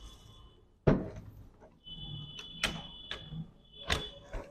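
Plastic laptop case being pried apart with a metal pry tool: sharp clicks and snaps as the housing clips let go, the loudest about a second in, with a thin high squeak through the middle.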